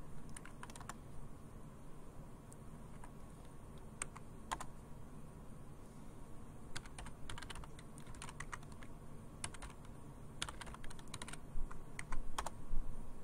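Computer keyboard keystrokes: a few separate key presses early on and about 4 s in, then short quick runs of typing from about 7 s on as a password is entered twice.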